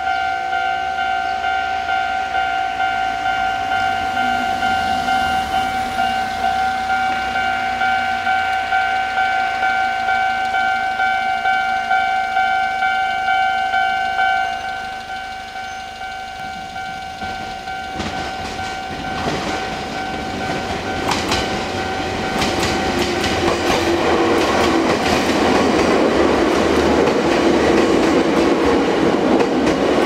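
Japanese level-crossing alarm ringing with steady tones. Past the halfway point a Chichibu Railway electric train approaches and runs over the crossing, its wheels clacking over the rail joints and growing louder toward the end.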